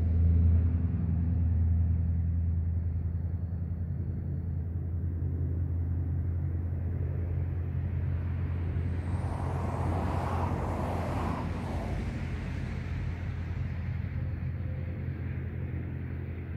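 Steady low rumble of a motor vehicle, slowly fading, with a louder rushing swell about ten seconds in.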